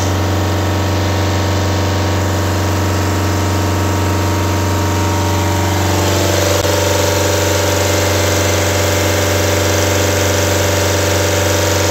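Truck diesel engine idling steadily, heard close up in the open engine compartment, running again after its broken wiring connector near the radiator has been repaired.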